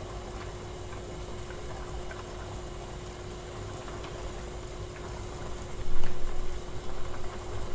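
Pot of water boiling on a portable gas stove as a water bath, melting a jar of candle wax: a steady bubbling with a faint steady hum under it. About six seconds in it gets louder and more uneven.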